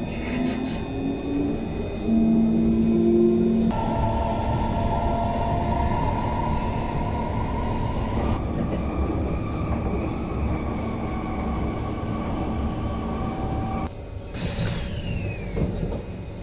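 Singapore MRT train running, heard from inside the carriage: a steady rumble with electric motor whine that rises in pitch over the first few seconds as the train pulls away, then holds steady tones. Near the end a whine falls in pitch as the train comes into a station.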